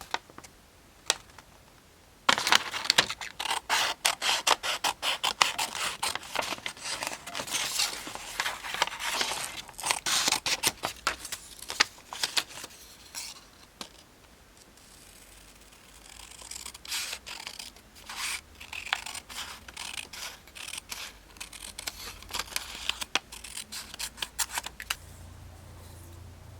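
Scissors cutting craft material in a long run of quick snips, starting about two seconds in, then a softer, scattered stretch of cutting after a short pause.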